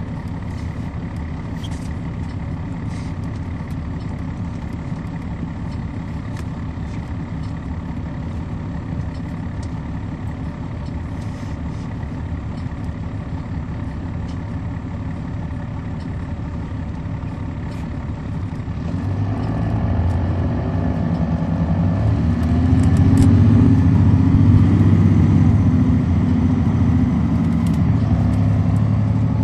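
2006 MCI D4500CL coach's Caterpillar C13 ACERT diesel engine running steadily at low speed, then, about two-thirds of the way in, rising in pitch and loudness as the bus accelerates, easing slightly near the end.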